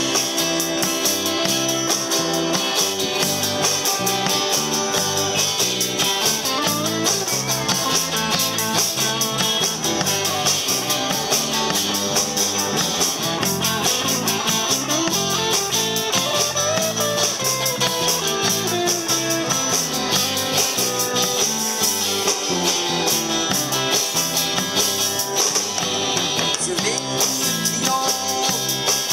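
Live rock and roll band playing a song on two electric guitars, electric bass and drum kit, with a steady drum beat and cymbals.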